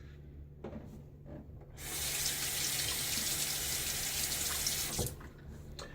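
Tap water running into a sink for about three seconds, starting and stopping abruptly, with a few small clicks before and after.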